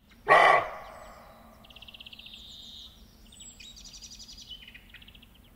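Small songbirds singing a series of high, fast trills, one after another. A single short, loud sound comes about a third of a second in.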